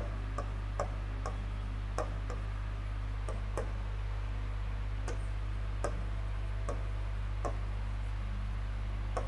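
Stylus tapping and clicking on the glass of an interactive touchscreen board as words are written, light irregular ticks roughly every half second to a second, over a steady low electrical hum.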